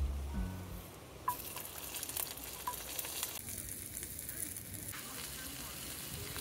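Food sizzling and crackling in a frying pan. The sizzle starts abruptly about a second in.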